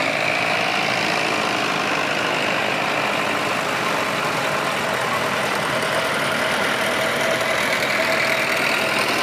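Vintage tractor engines running steadily as the tractors drive slowly past one after another, close by.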